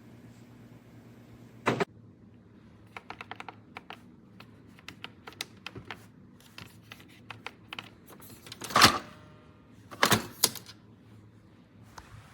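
Hard objects being handled: a loud clack, then quick runs of light clicks and taps, and two louder knocks near the end, the first followed by brief ringing.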